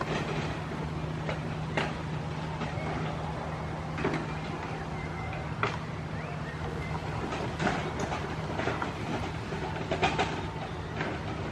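A steady low mechanical hum over a constant outdoor rumble, with scattered short clicks and taps through it.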